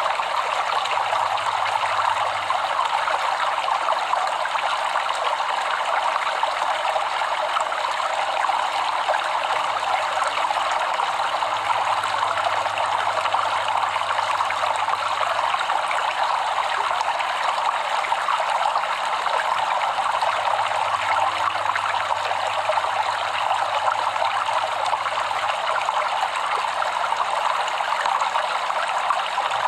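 A flowing stream: a steady, even rush of running water.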